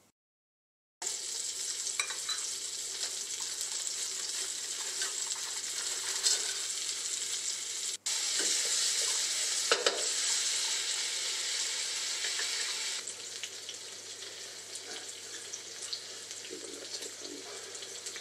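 Lingcod fish cakes frying in oil in a pan: a steady sizzling hiss with small crackles and pops. It starts about a second in and turns somewhat quieter about two-thirds of the way through.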